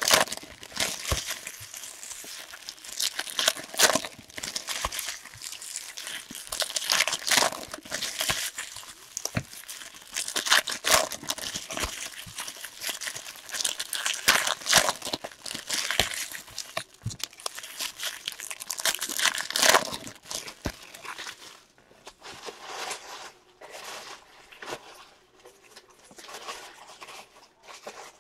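Trading-card pack wrappers being torn open and crumpled: a long run of sharp crinkles and rips, dying down to softer, sparser rustling for the last several seconds.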